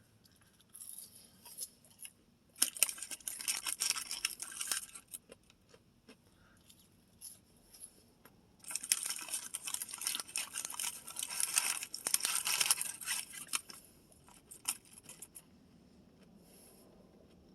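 Crisp crackling and crinkling close to the microphone, in three stretches: briefly about a second in, again from about two and a half to five seconds, and longest from about nine to thirteen seconds. It comes from a fried-food meal being handled and eaten.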